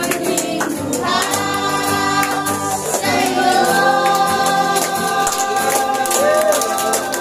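A congregation singing a Tagalog praise and worship song over band accompaniment, with sustained sung notes and a steady percussion beat.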